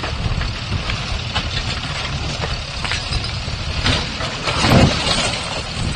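Diesel engine of heavy demolition machinery running, with scattered knocks and clatters and a louder surge near the end.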